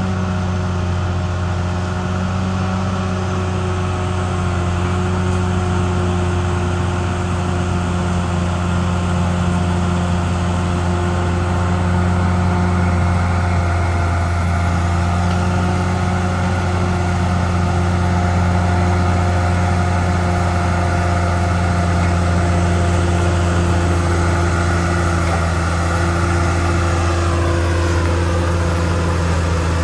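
CAT D6R XL bulldozer's diesel engine running steadily. A higher whine drops in pitch near the end.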